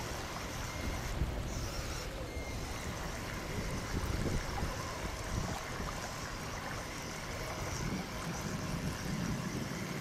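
A toy radio-controlled amphibious vehicle's paddle treads churning and splashing through shallow water, a steady rush of water.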